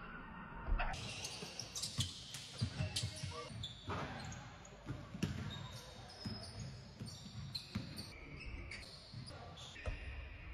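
Basketballs bouncing on a hardwood gym floor, a run of irregular thuds as players dribble.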